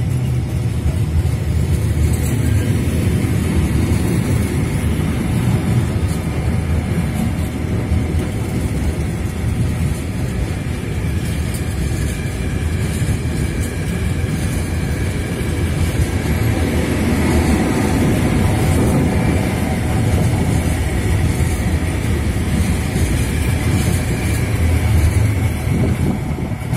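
Freight train of tank wagons rolling past close by: a steady rumble of wheels on the rails.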